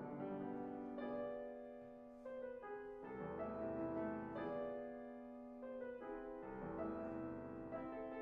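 Classical cello-and-piano duo music, the Yamaha grand piano carrying the passage while the cello rests with its bow lifted.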